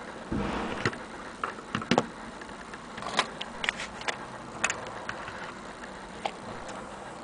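Handling noise: a clock's metal winding key and wooden case being handled, giving irregular light clicks and taps, with a low thump of microphone handling shortly after the start.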